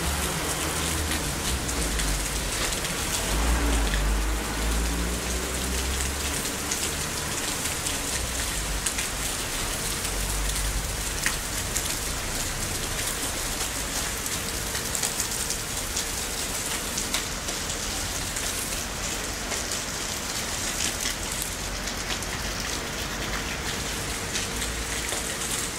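Rain falling and pattering on surfaces, a steady hiss full of fine drop ticks, with a low rumble about three to six seconds in.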